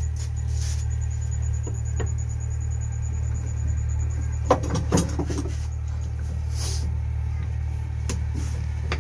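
Metal clinks and knocks of a tractor starter motor's armature and field housing being handled during reassembly, the sharpest a little past the halfway point, over a steady low hum.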